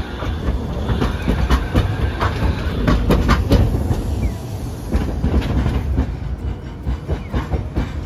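Hiroden 800-series streetcar running close by on street track: a low rumble of wheels and motors with a series of sharp clacks as the wheels cross rail joints and points. It is loudest about three seconds in.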